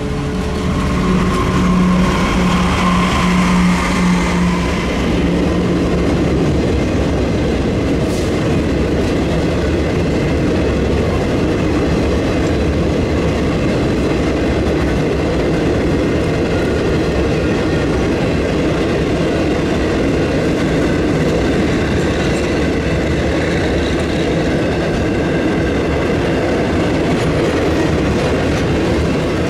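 Freight train passing close by. A locomotive's engine drone fades over the first few seconds, then a long steady run of cars rolls past with wheels clattering over the rail joints.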